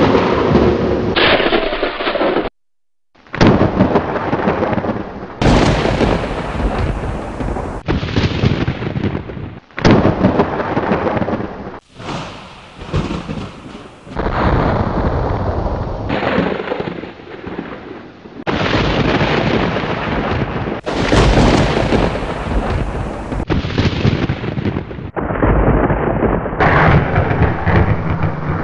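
Thunder from a nighttime thunderstorm: loud rumbles and cracks in a string of separate recordings joined by abrupt cuts every few seconds, with a brief dead-silent gap about two and a half seconds in.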